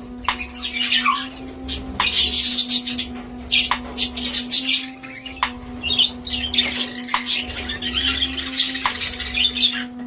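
A flock of budgerigars chattering, with many overlapping high chirps and squawks. A steady low hum runs underneath, and faint clicks come about every second and a half.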